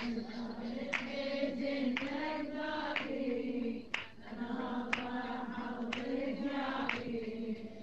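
Wordless choir humming a sustained drone between the sung lines of a mourning lament, with a sharp beat about once a second.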